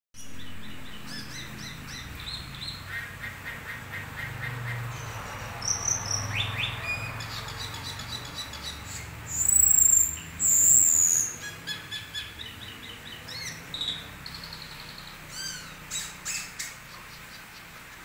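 Caged cucak keling singing a varied, chattering song of quick repeated chirps and trills mixed with clear whistles, the mimicked 'fill-in' phrases this bird is kept for. Two loud, long high whistles stand out about halfway through, and a faint low hum runs underneath.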